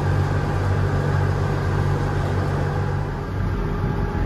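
Sailing catamaran's engine running steadily as the boat motors along, a low hum with water and wind noise over it. About three seconds in, the steady hum gives way to a rougher rumble.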